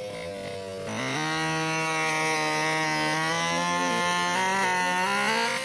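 Small two-stroke petrol engine of a 1/5-scale RC car revving up about a second in and then holding a steady, high buzz at speed, dropping off near the end.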